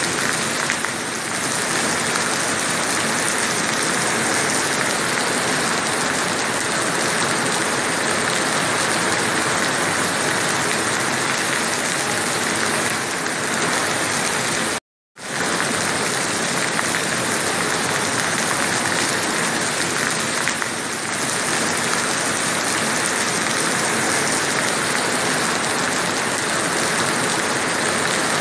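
Steady rain falling on the sea and beach, an even hiss that cuts out for a split second about halfway through.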